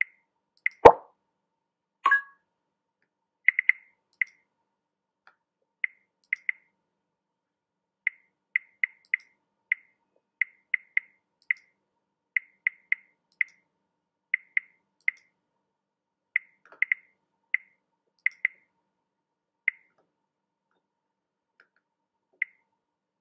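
Computer mouse button clicking, about thirty short sharp clicks at an irregular pace, often in quick pairs or threes. One louder thump about a second in and a short pop just after.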